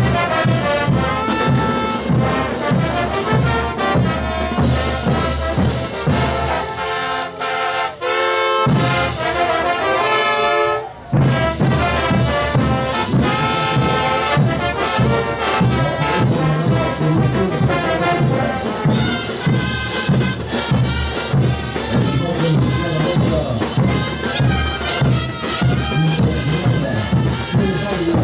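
Marching brass band of trumpets and trombones playing a festive tune over steady bass-drum beats. The drums drop out for a couple of seconds about six seconds in, and the whole band breaks off for a moment just before eleven seconds, then plays on.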